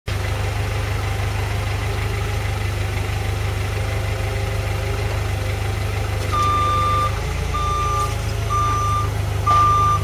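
A forklift's engine running with a low steady rumble. From about six seconds in, its reversing alarm beeps about once a second as it backs up carrying a lifted bin.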